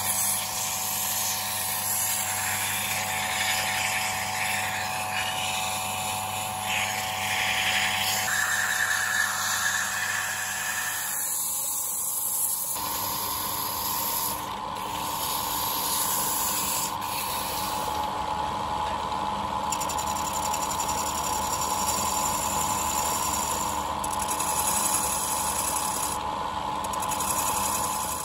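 Wood lathe running with a steady motor hum while sandpaper is held against the spinning wooden workpiece, giving a constant rubbing hiss. The tone of the running changes about halfway through.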